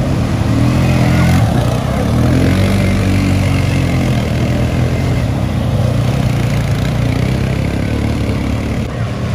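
ATV quad bike engine running steadily, its pitch shifting up and down a little.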